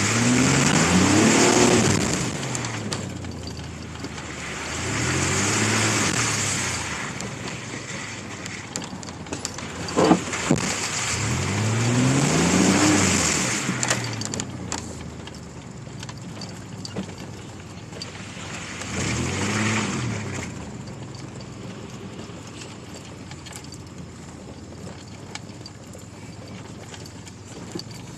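2002 Chevy Blazer's 4.3-litre V6 revving hard four times while driving through mud, the pitch rising with each push and a hiss with each rev, then running more quietly for the last several seconds. A sharp knock about ten seconds in.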